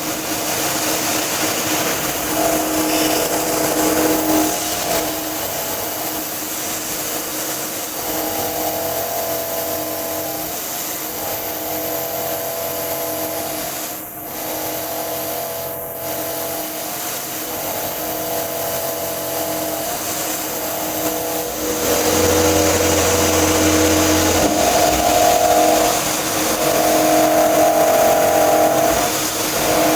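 CNC knee mill cutting steel with a half-inch four-flute end mill at about 3,000 RPM: a steady cutting whine of several held tones over a noisy hiss. The tones break off and come back every few seconds as the adaptive toolpath changes feed rate, and the cut gets louder about two-thirds of the way through.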